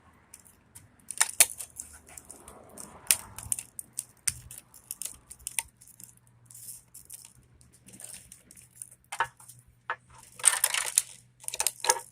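Sharp clicks, knocks and scrapes of a hammer prying a plastic piece and the copper deflection yoke off the neck of a CRT television tube. The knocks come thicker near the end, with a longer scrape among them.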